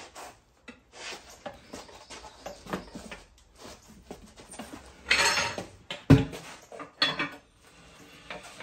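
Manual tire changer's steel mount bar being levered around the center post to walk the tire bead onto the wheel: metal scraping and clanking, with a loud clunk about six seconds in.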